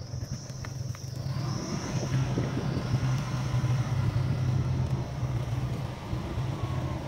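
Motorcycle engine running steadily at a low pitch while riding a rough dirt road, growing louder about a second in.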